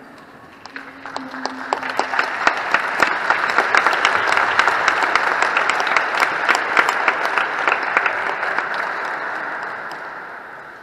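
Hand-clapping applause that builds over the first couple of seconds, holds for several seconds with single claps standing out, then dies away near the end.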